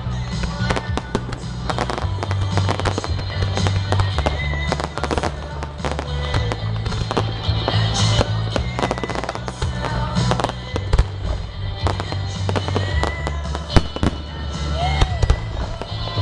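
Fireworks display: aerial shells bursting in rapid succession with dense crackling, many sharp reports overlapping.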